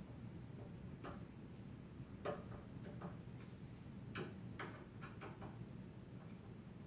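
A few faint, irregularly spaced clicks and light knocks: hard objects being handled against a wooden cabinet door. There is no drill running.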